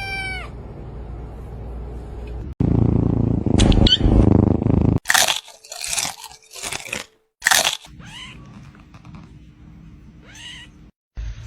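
A kitten's meow trailing off, then a few seconds of crunching and rustling noises in sharp bursts, and another short meow near the end.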